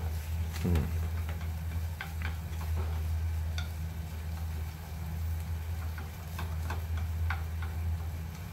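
Scattered light clicks and taps of a cooking utensil against a frying pan, some with a short metallic ring, over a steady low hum.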